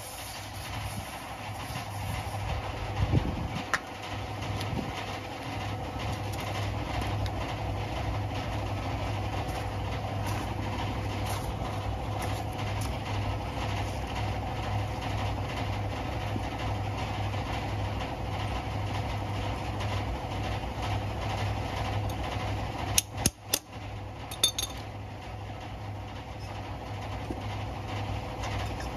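An engine idling steadily, a low even hum. Around 23 to 24 seconds in, a few sharp metallic clinks.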